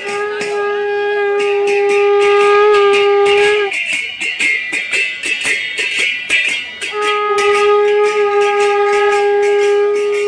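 A conch shell blown in two long, steady notes, each held about three and a half seconds with a pause for breath between, over a busy clatter of percussion.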